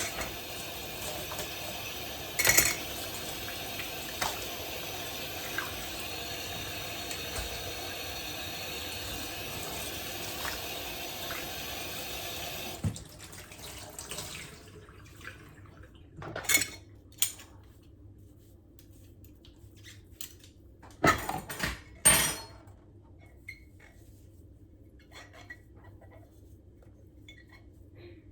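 A kitchen tap running steadily, with a clack early on, then shut off suddenly about halfway through; a few sharp clatters of dishes follow.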